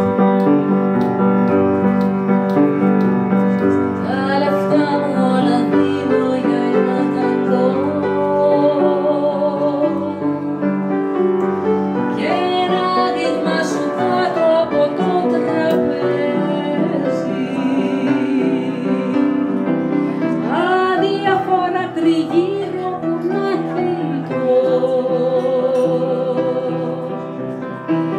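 Mezzo-soprano woman singing with vibrato into a microphone, accompanied by piano. The piano plays alone at first, and the voice comes in about four seconds in.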